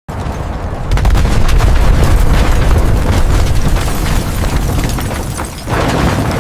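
Explosion sound effect: a loud blast that starts suddenly, swells about a second in into a long, deep rumble thick with crackling debris, then surges again near the end.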